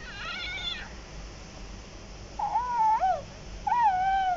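Electronic Baby Yoda (The Child) plush toy squeezed, its speaker playing baby-like cooing sounds: three short wavering calls, the last one falling in pitch.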